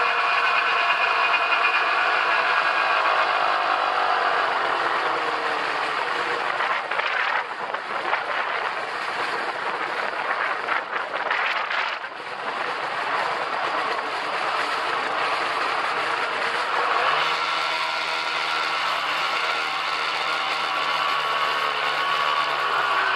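Snowmobile engine running under way. Its pitch falls about five seconds in, a rushing noise takes over for a few seconds, and from about seventeen seconds it holds a steady higher pitch, dipping and rising again near the end.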